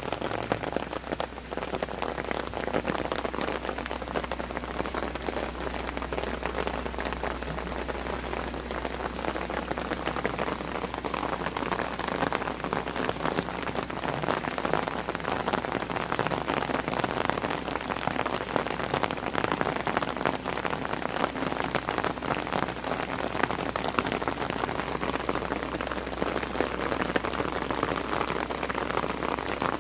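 Steady rain falling, with a dense run of close individual drops ticking through it.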